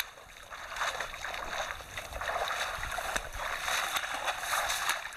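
Leafy shrubs and branches rustling and swishing against a person pushing through them on foot, in irregular swells, with footsteps on the trail.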